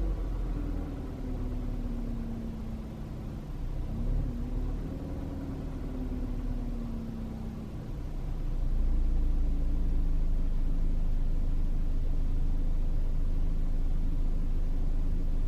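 2013 Ford Fusion engine idling, its pitch sagging, jumping up about four seconds in and sagging again: a slightly fluctuating idle, with a P0108 manifold absolute pressure (MAP) sensor code stored. The sound grows louder about eight seconds in and then holds steady.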